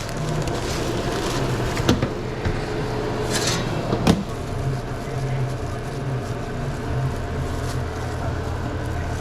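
Steady low hum of restaurant kitchen equipment, with two sharp knocks about two seconds apart and a brief hiss between them.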